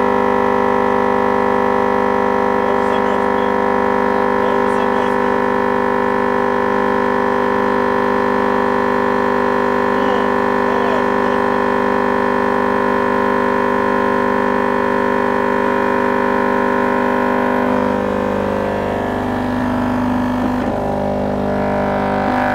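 Ural Sound TT 10 car subwoofer driven with a steady test tone at about twice its rated RMS power, giving a loud, constant buzzing drone. About 18 seconds in the sound turns rougher and unsteady as the overheating subwoofer starts to smoke and burn, and at the very end it cuts off abruptly as the subwoofer fails.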